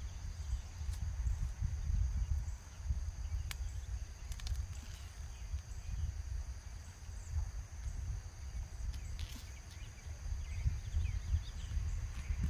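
Black plastic mulch crinkling in short spells as it is cut and folded by hand, with a few sharp crackles. Under it there is a steady high insect drone and a low rumbling noise that comes and goes.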